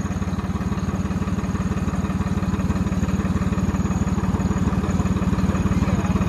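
Diesel tractor engine idling close by with a steady, even beat.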